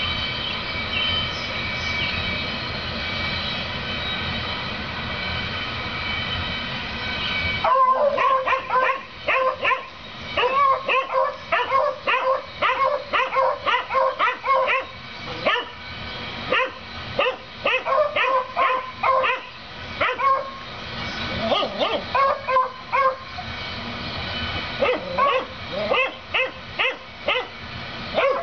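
A steady rumble with several held tones for the first several seconds, which cuts off suddenly. Then two penned dogs bark excitedly and in quick succession at a rabbit just outside their fence, with a brief lull about three-quarters through.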